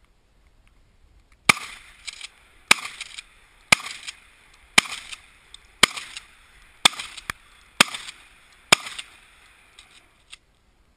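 Eight gunshots fired in a steady string about a second apart, each followed by a short echo.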